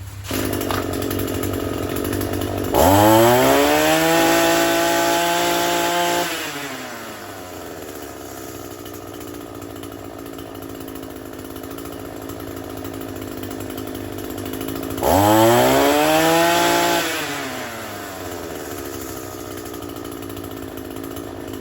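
Echo SRM-225 string trimmer's small two-stroke engine idling, revved up to full throttle for about three seconds and let fall back to idle, then revved again for about two seconds near the end. It idles and revs cleanly off choke after a carburetor clean and high/low-speed needle adjustment: "running like a new one."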